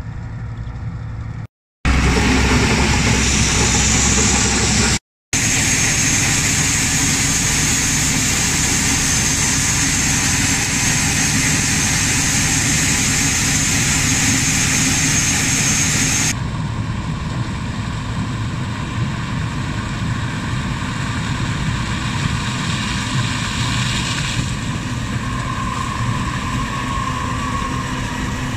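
John Deere 2066 combine harvester running steadily, heard through several edit cuts. In the middle stretch its unloading auger pours shelled maize into a trailer with a steady high hiss; after that the machine sound changes to a lower running note.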